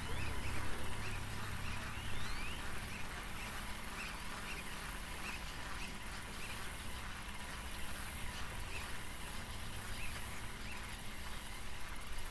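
Short chirping animal calls repeating about twice a second, with a low rumble in the first two seconds.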